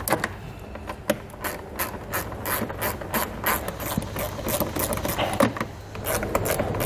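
Hand ratchet with a 7 mm socket clicking in uneven runs of quick clicks as a small screw holding the front fascia and wheel well liner is backed out.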